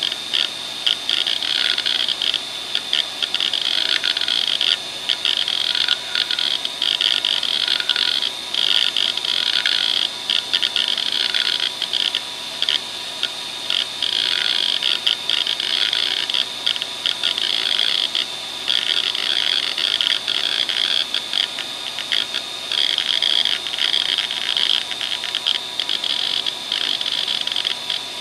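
Western Digital WDAL2540 540 MB 2.5-inch hard drive seeking under the hdmotion head-sweep test. The head actuator chatters in rapid, buzzy clicks whose pitch sweeps up and down in a repeating pattern as the heads move in and out across the platters. Meanwhile the worn drive reports uncorrectable CRC/ECC read errors.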